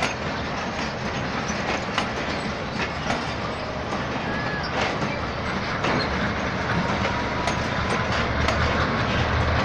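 Pakistan Railways passenger coaches of the Millat Express rolling slowly past over jointed track and points: a steady rumble with a clack of the wheels every second or so. A faint wheel squeal comes in about two-thirds in, and it grows a little louder near the end.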